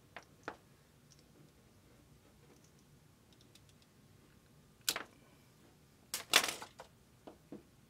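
Clicks and knocks from handling a cut extension cord as its split jacket is pulled open to expose the wires: a couple of faint clicks at the start, a sharp click about five seconds in, and a louder cluster of clicks and knocks near the end.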